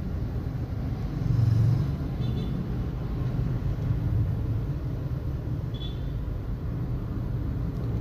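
Steady low background rumble that swells briefly about a second and a half in, with two faint light clicks.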